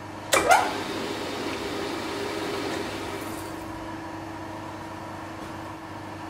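Milling machine running with a steady hum while an M6 × 1 high-speed-steel tap is fed into a hole in an aluminium plate, with a short sharp sound about half a second in.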